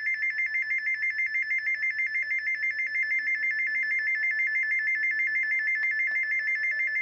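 NOAA weather radio sounding its alert-test alarm. It is a high-pitched two-tone warble that flips rapidly between two close pitches, about seven times a second, held at a steady loudness.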